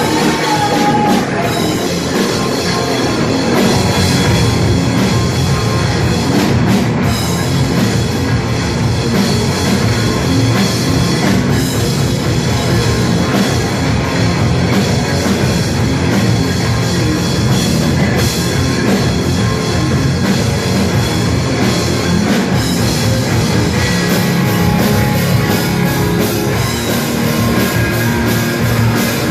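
A rock band playing, drum kit and distorted electric guitars.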